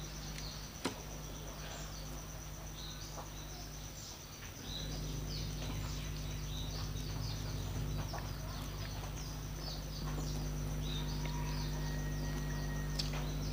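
Steady low hum with a thin, steady high whine above it, and small birds chirping again and again in the background. A single sharp click about a second in.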